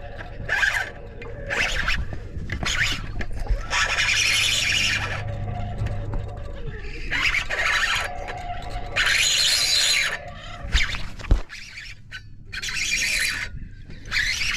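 Fishing reel drag screeching as a hooked fish pulls line, in repeated runs of about half a second to a second and a half, the longest about four and nine seconds in.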